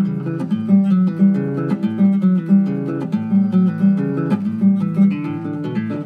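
Nylon-string classical guitar played solo with the fingers: a continuous run of plucked notes over a ringing bass line.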